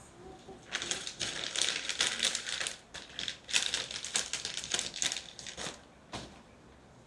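A run of rapid, irregular clicking and rustling from computer parts being handled, lasting about five seconds, with one last click near the end.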